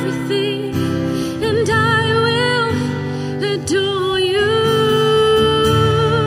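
Song with a woman singing long held notes with vibrato over acoustic guitar accompaniment.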